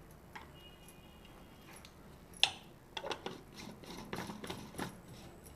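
Light plastic clicks and knocks as a personal blender's blade lid is fitted and screwed onto its cup, after one sharper knock about two and a half seconds in.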